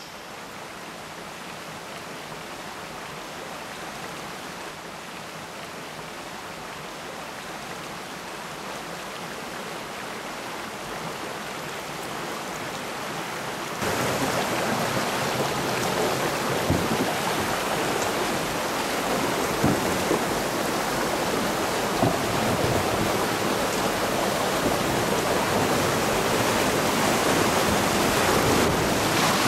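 Whitewater rushing over rocks in a shallow river chute just above a falls: a steady roar of water that grows slowly, then jumps abruptly louder about halfway through, close up in the rapids.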